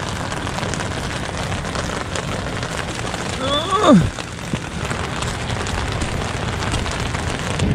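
Steady rain falling on an umbrella and wet asphalt shingles. A little before halfway through comes one short squeal falling in pitch.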